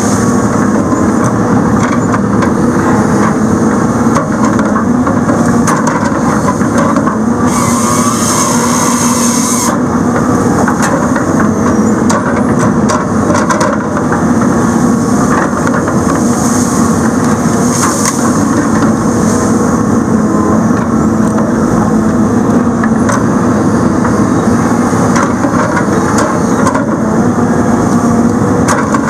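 Heavy logging machine working a Rotobec grapple saw: the engine and hydraulics run hard and steady while the saw cuts through stumps and logs. A louder hiss stands out for about two seconds a quarter of the way in.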